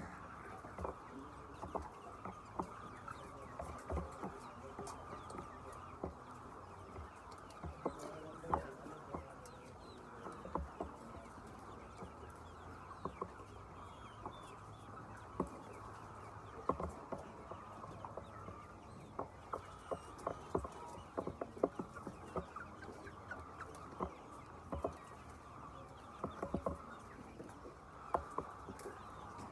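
A flock of chickens clucking continuously, with many short sharp clicks scattered irregularly throughout.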